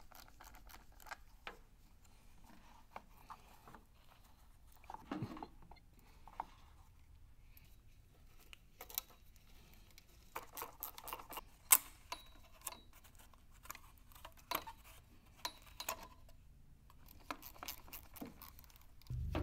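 Scattered light metallic clicks, clinks and taps of hand tools and fasteners being handled on an old Fiat's front bumper fittings, with one sharp click about twelve seconds in. A power tool starts running right at the end.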